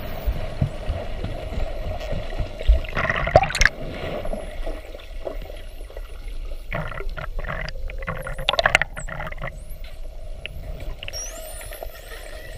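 Underwater sound of a pod of spinner dolphins, their faint high whistles gliding up and down. Bursts of bubbling and gurgling come about three seconds in and again around eight seconds.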